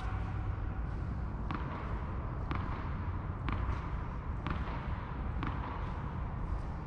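Tennis ball tapped repeatedly on a racket's strings, one light tap about every second, five in a row, over a steady low rumble.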